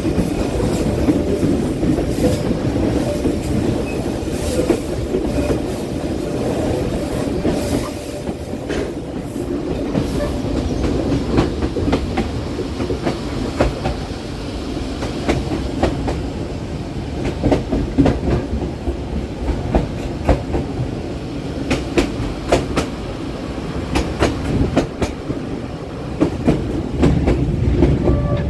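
Passenger train's carriage wheels rolling on the rails with a steady rumble and frequent sharp clicks over rail joints, the train climbing a winding mountain line.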